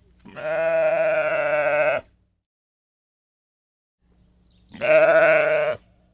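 Two long, wavering bleats from a sheep or goat-type farm animal: the first lasts about a second and a half, the second, a few seconds later, about a second.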